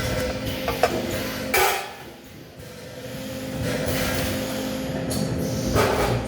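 Welding-shop noise: a steady machine hum with a few sharp metal knocks and clanks, the loudest near the end.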